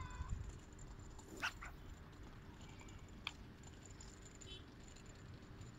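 A long surf rod cast overhead, with one quick swish of rod and line about a second and a half in, followed by a sharp click near the middle. Faint short animal calls can be heard now and then.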